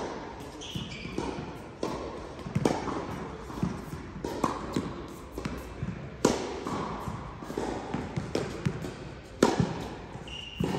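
Tennis balls struck by rackets and bouncing on an indoor court: a rally of sharp strikes a second to a few seconds apart.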